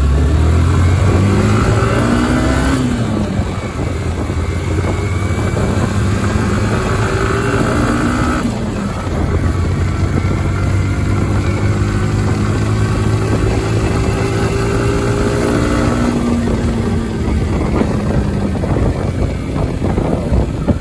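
Motorcycle engine accelerating along the road, its pitch climbing and then dropping sharply at each gear change, a few times over. Steady wind and road noise runs underneath.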